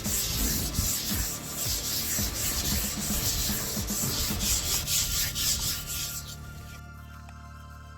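Sandpaper rubbed back and forth by hand over a dried sealer coat, about two strokes a second, knocking down the edges of runs before the next coat; the strokes die away near the end, leaving soft background music.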